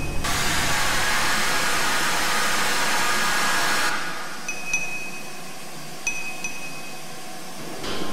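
Electronic sound-design soundtrack: a loud, even hiss that cuts in and cuts off abruptly after about four seconds, followed by sparse, short, high pinging tones.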